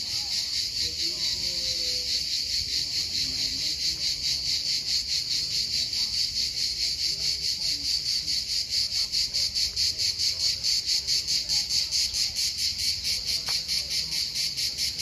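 Cicadas singing in the trees: a loud, high, buzzing chorus that pulses evenly at about four beats a second.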